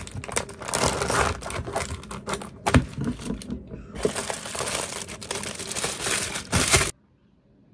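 Plastic carrier bag and aluminium foil food wrapping crinkling and crackling as they are handled and opened. There is a short pause about halfway. The sound stops abruptly near the end.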